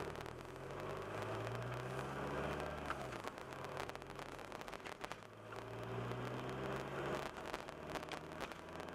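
Car engine heard from inside the cabin, pulling away from a green light and accelerating, over tyre and road noise. Its pitch rises, drops back about three seconds in, and rises again.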